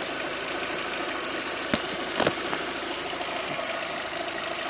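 Mk4 Golf GTI turbo engine idling steadily in the engine bay, with two sharp clicks of handling partway through.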